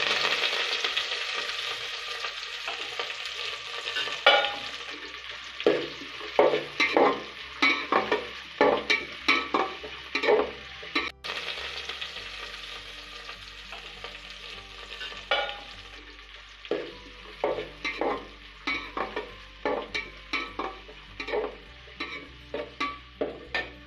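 Chopped onion and curry leaves sizzling in hot oil in a metal pot on a low flame, the sizzle loud at first and slowly dying down. A metal spatula stirs and scrapes against the pot in many short clicks and knocks.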